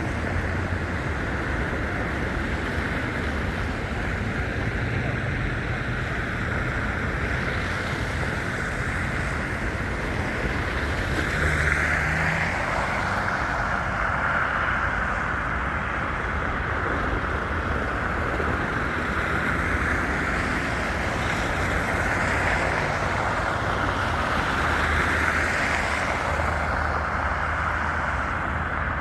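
Steady outdoor city ambience in a snowstorm: a continuous rush of wind and traffic noise that swells a little about twelve seconds in and again near twenty-five seconds.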